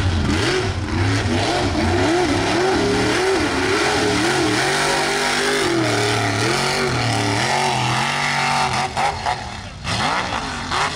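Mud race truck engine revving hard, its pitch swinging up and down over and over as the throttle is worked. The sound drops away briefly near the end.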